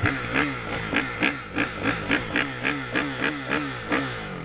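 Off-road race motorcycle's engine running, its note rising and falling about three times a second, then dropping away near the end as the bike slows.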